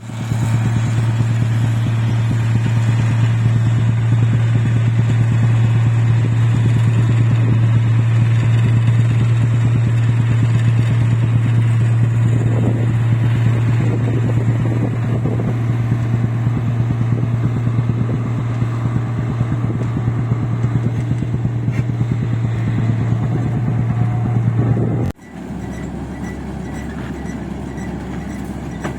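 Rice combine harvester's engine running steadily while cutting paddy, a strong even hum. About 25 seconds in the sound cuts off suddenly and gives way to a quieter, lower steady drone.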